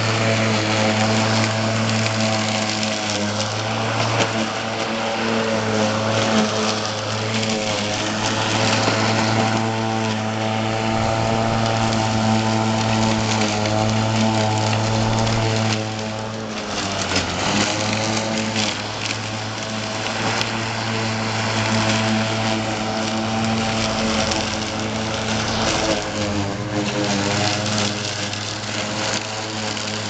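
Homemade remote-control robotic lawn mower running with its electric mower motor humming steadily. The hum dips in pitch and recovers about halfway through and again near the end.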